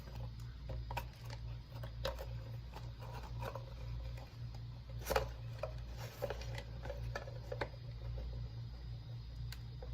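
Hands handling hard plastic packaging and camera parts: scattered light clicks and taps, one sharper click about five seconds in, over a steady low hum.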